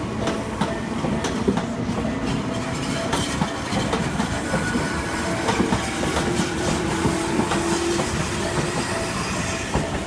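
A Tobu Skytree Line commuter train passes over a level crossing, its wheels clattering over the rail joints, with a long, slowly rising squeal from about three to nine seconds in. The crossing's warning bell rings in a steady repeated beat underneath.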